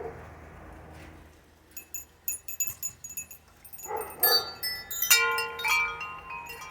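Metal wind chimes tinkling in the breeze: scattered light strikes from about two seconds in, then several chime tones ringing together and dying away over the last second and a half.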